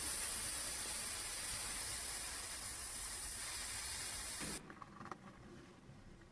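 Paint being sprayed onto a small scale-model wheel rim: one steady hiss that starts abruptly and cuts off suddenly after about four and a half seconds, followed by a few faint ticks.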